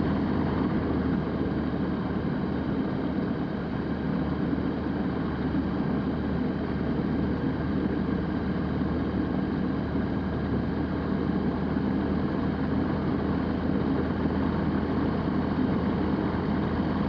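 Zenith STOL CH 701's 100-hp Rotax 912ULS flat-four engine and propeller running steadily at low taxi power.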